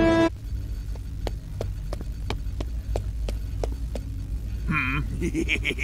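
Credits music cuts off, then a cartoon laboratory's ambience follows: a steady low machine hum with a regular ticking about three times a second. A short vocal sound comes near the end.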